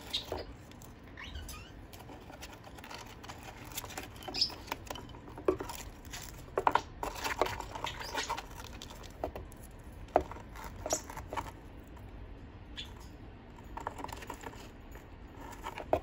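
Jardine's parrot chewing and crunching yucca chips and cardboard with its beak: irregular small snaps, crackles and scrapes.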